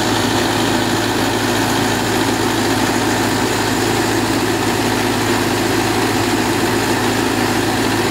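Mahindra tractor's diesel engine running steadily at a constant speed.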